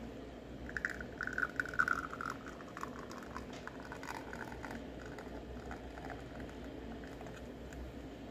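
Espresso from a Flair Neo manual lever press dripping and then trickling into a double-walled glass cup. There is a louder irregular pattering stretch about a second in, then fainter scattered ticks as the stream runs on.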